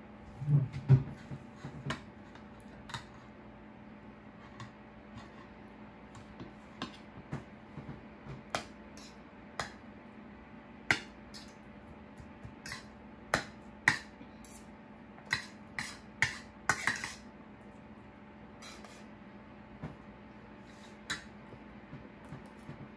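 Metal spoon and fork clinking and scraping against ceramic plates in scattered sharp clicks, busiest in the second half. A few low thuds about a second in, over a faint steady hum.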